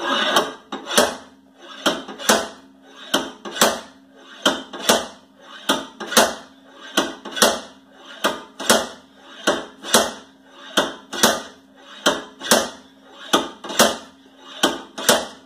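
A ten-pound sledgehammer striking a rusted-in rear wheel hub on a 2010 Toyota Prius in steady, even blows about one and a half a second, each with a metallic ring. The hub is seized with road-salt rust and is not coming loose.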